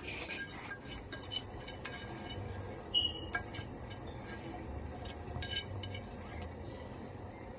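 Irregular light clinks and taps of kitchen utensils against a cooking pot as washed rice is added to it.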